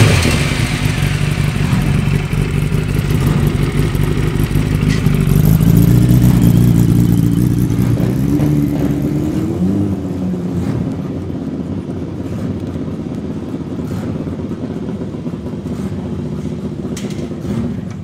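Classic air-cooled racing superbike engines with open racing exhausts, freshly started in the pits. The revs rise and fall around the middle, then an engine runs more quietly and steadily at idle through the second half.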